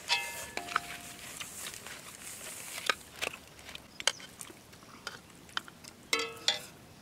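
A person eating mutton curry: chewing and smacking mouth sounds with scattered small clicks. Two brief pitched sounds break in, one right at the start and one about six seconds in.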